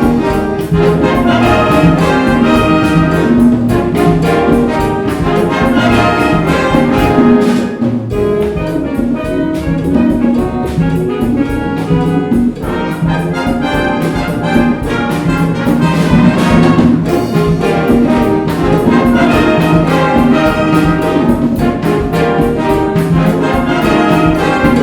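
Concert band playing a Latin-flavoured piece loudly, with trumpets and trombones over a busy percussion rhythm.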